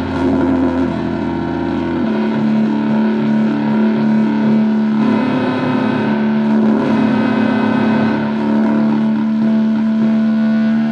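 Distorted noise drone: a thick, buzzing, sustained chord that holds steady, with its low notes shifting about two seconds in and the texture changing again later on.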